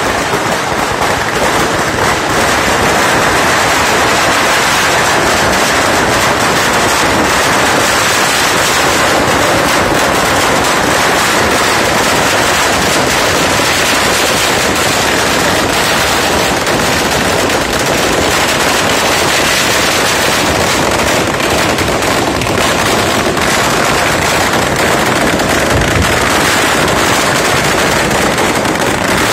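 Firecrackers bursting at ground level in a continuous rapid-fire stream of bangs that never lets up, with one deeper thump near the end.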